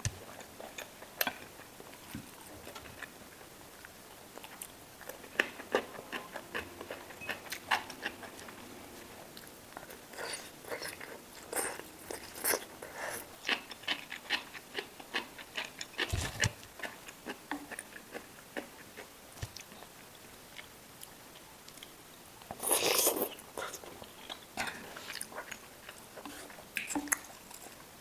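Close-up eating sounds: a person biting and chewing food, with irregular crunches and wet mouth clicks and a few louder crunchy bursts.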